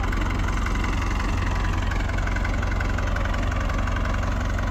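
Old Massey Ferguson tractor engine idling steadily, with a fast, even clatter.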